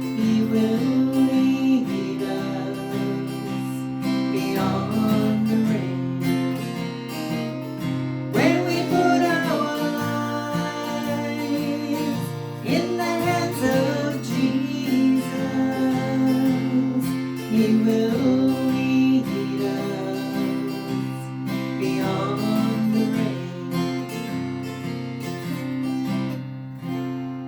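Instrumental gospel music led by acoustic guitar, with strummed chords and a melody line that slides between notes in places.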